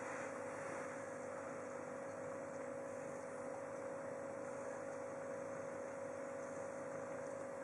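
Steady electrical hum with a background hiss, holding one pitch throughout.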